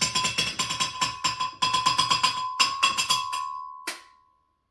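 A spoon rapped fast and repeatedly against the rim of a container to knock peanut butter off it, each loud strike ringing, thinning out to a last ringing strike about four seconds in.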